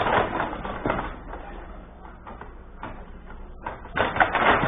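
Table hockey game in play on a Benej table: rods sliding and being spun, with quick clacks and knocks of the plastic players and puck against the playing surface and boards, busiest at the start and again near the end.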